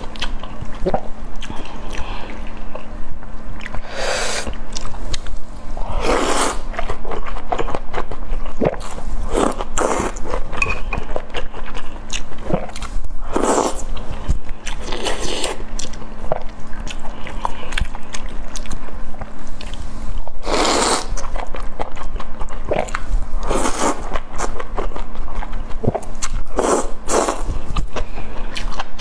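Close-miked eating of beef and enoki mushrooms from a spicy broth: wet chewing and small mouth clicks, broken every few seconds by short, loud noisy bursts of slurping, about ten in all.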